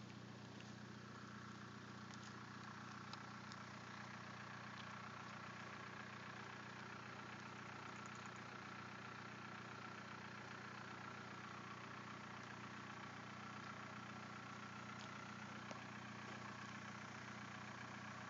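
Steady low engine hum, with a few faint ticks.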